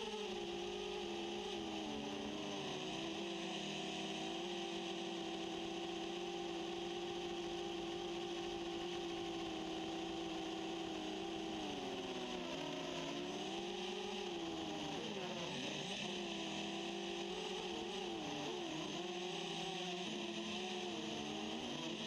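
Quadcopter's four SunnySky A2212 980KV brushless motors spinning 10-inch propellers, heard from on board: a steady motor hum that holds one pitch, then wavers up and down in the second half as the throttle changes.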